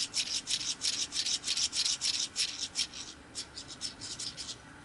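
Small freshly assembled model steam engine turned over by hand: its brass cylinder and piston rub and slide in a quick, even run of short strokes, several a second, which slow and thin out after about three seconds and stop shortly before the end.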